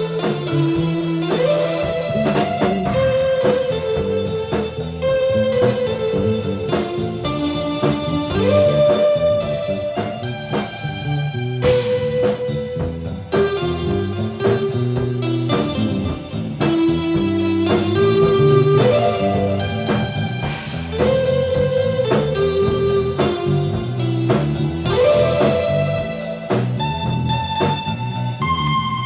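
Rock band improvising live: a guitar melody moving in stepwise phrases over a drum kit and bass, with a sharp accent about twelve seconds in.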